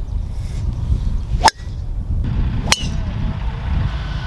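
Golf club heads striking golf balls: two sharp, crisp impacts about a second apart, over a steady low rumble.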